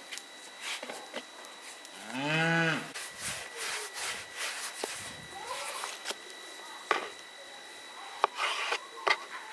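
A cow moos once, a short call about two seconds in that rises then falls in pitch and is the loudest sound. Under it are the soft rubbing of hands rolling dough on a floured wooden board and a few light knocks in the second half.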